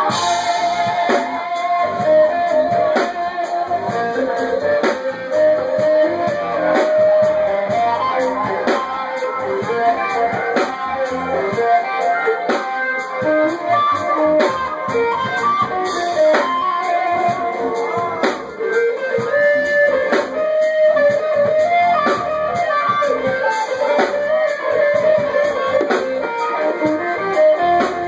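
Live band music led by a guitar playing a run of melodic single notes, recorded through a phone's microphone.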